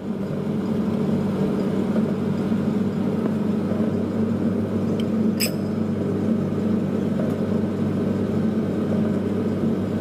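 Steady low mechanical hum, with a single short clink about five and a half seconds in.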